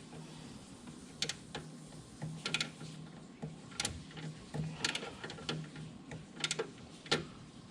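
Scattered light clicks and taps of hand tools and parts being handled while a catch can fitting is snugged down, at an irregular pace, over a faint steady low hum.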